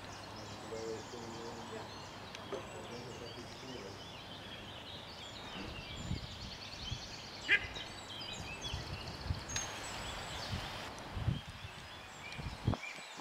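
Songbirds singing and trilling from the surrounding trees over a steady outdoor hiss, with scattered low thumps in the second half and one short, sharp, loud sound about seven and a half seconds in.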